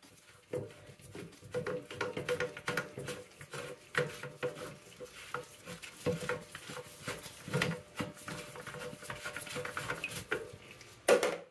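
Old toilet fill valve being worked loose in the tank as its bottom nut is backed off: irregular light clicks, knocks and scrapes of plastic parts against the ceramic tank.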